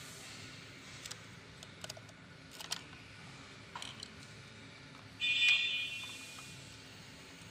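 Small clicks and rattles of screws and a plastic cover being handled as the controller compartment on an electric bike's frame is opened. About five seconds in comes a brief, shrill, high-pitched sound lasting under a second, louder than the rest.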